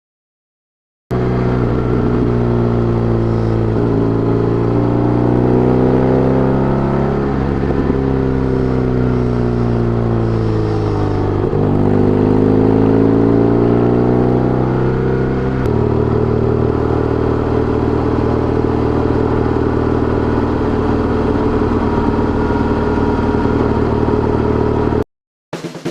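BMW R1200GS boxer-twin engine running under way. It starts about a second in, its revs rise and fall several times, then it holds a steady pitch for the last ten seconds before cutting off.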